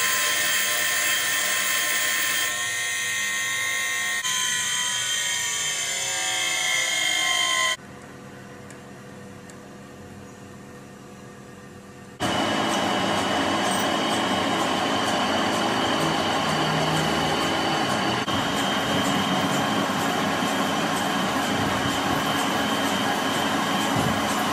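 Bench grinder whining as a lathe tool bit is ground against its wheel, for about eight seconds. A much quieter stretch of about four seconds follows. Then a lathe turning a large iron workpiece with coolant on the cut: a loud, steady cutting noise with a high whine over it.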